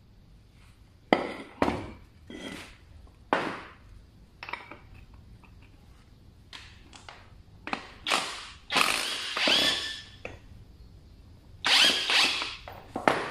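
Workshop tool work on a car's suspension during a shock absorber change: several sharp metal clanks, then a power tool running in short bursts of about a second, twice.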